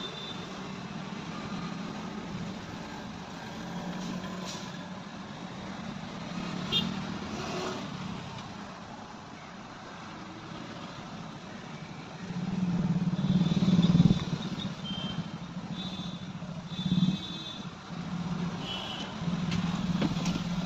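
Road traffic: motor vehicle engines running and passing, swelling loudest about two-thirds of the way through, with a few short high-pitched beeps near the end.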